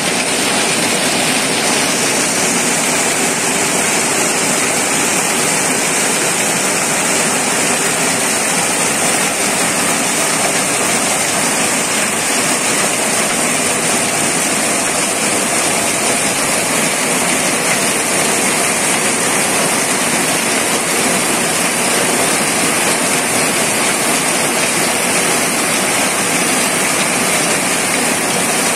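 Heavy tropical downpour: torrential rain pouring down in a loud, steady hiss that never lets up.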